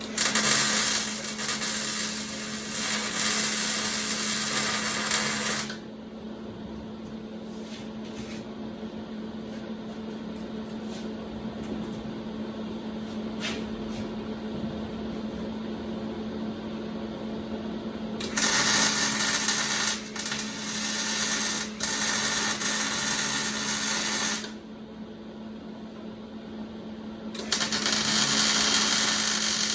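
Electric welder laying three beads, or heavy tacks, on a steel crossmember, each a few seconds of arc crackle: one at the start, one in the second half and one near the end. A steady hum runs underneath throughout.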